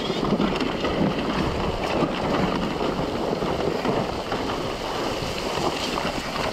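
A Beta 200RR dirt bike skidding down a steep slope of loose dirt and rocks, with a dense, continuous crunching and scraping of tyres and gravel. Wind rushes on the helmet-camera microphone.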